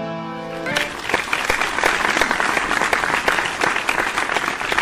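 Intro music ending less than a second in, then a theatre audience applauding steadily.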